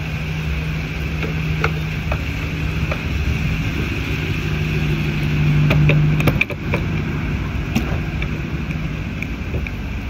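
Gas station fuel pump running while a car is being filled: a steady hum with a few light clicks, cutting off with a click about six seconds in, over steady background noise.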